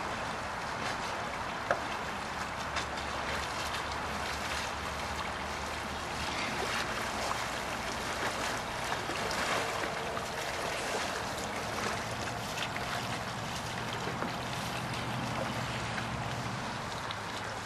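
Steady rush of flowing river water, with faint paddle splashes from a slalom canoe that come through more clearly about midway as the boat passes closer.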